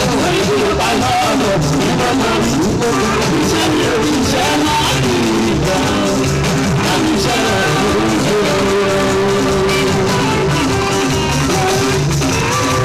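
Live fuji music: a man singing in Yoruba through a microphone and loudspeakers over band accompaniment.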